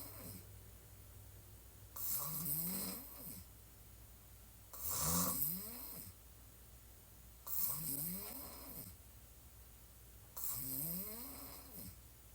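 A woman snoring on her back with her mouth open: a snore about every three seconds, each rising in pitch.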